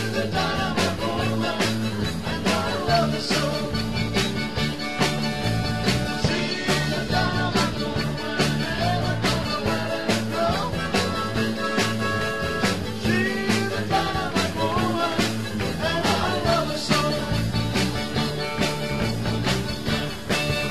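A live rock band playing a sixties-style song: a steady drum beat over bass and electric guitar.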